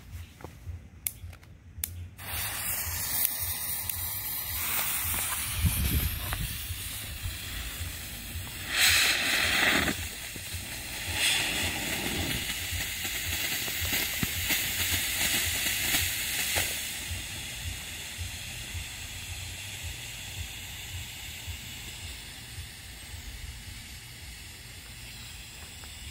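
A few clicks, then a firework smoke box hissing steadily as it pours out thick yellow and white smoke. The hiss starts about two seconds in, swells for a moment around nine seconds, and slowly weakens near the end.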